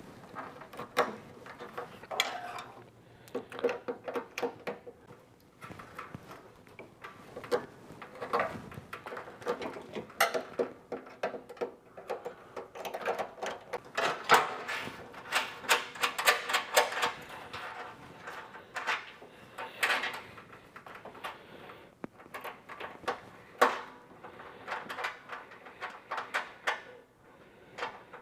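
Hand-tool work at an electric heater's terminal block: scattered clicks, scrapes and light metal rattles as the power leads are fitted and fastened.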